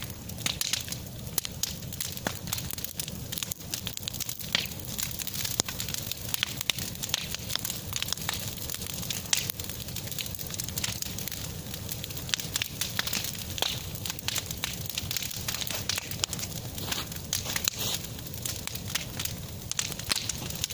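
Bonfire of branches burning, crackling with many small irregular pops.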